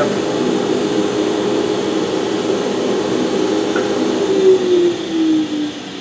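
Jointer and dust collector motors running with a steady hum. Near the end, a motor winds down with a falling pitch after being switched off.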